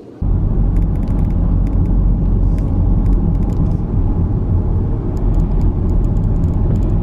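A vehicle's loud, steady low rumble, starting suddenly and cutting off sharply, with faint light ticks over it.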